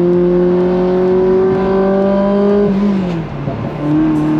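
Ferrari 360 Spider's V8 pulling in gear, its pitch slowly rising, heard from inside the cabin. About three seconds in the pitch drops sharply as the F1 paddle-shift gearbox changes up. There is a brief dip in sound, then the engine carries on at a lower pitch.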